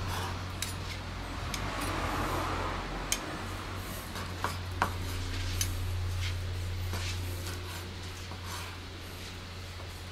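Knife and metal tongs clicking and tapping on a wooden cutting board while grilled meat is sliced, a sharp tap every second or so, over a steady low hum.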